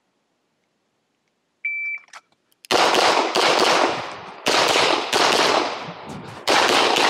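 Electronic shot timer beeps once, about a second and a half in, on the start signal. Within a second a handgun starts firing: several sharp shots in quick succession, each with a long echoing tail.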